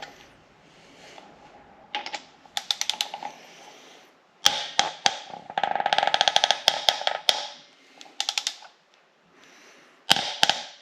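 A ratchet wrench clicks in quick runs as a Subaru EJ25 cylinder head bolt is tightened, with a long fast run of clicks in the middle. The bolt sounds crunchy as it turns, which the mechanic is not happy with; he takes it for a dry bolt seat that needs more oil.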